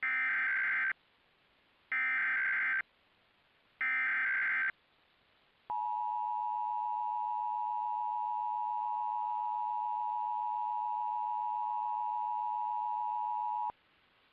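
Emergency Alert System SAME header: three short bursts of screechy data-modem tones, each about a second long and about a second apart. They are followed by the EAS two-tone attention signal (853 and 960 Hz), held steady for about eight seconds and then cutting off. Together these tones open a required monthly test of the alert system.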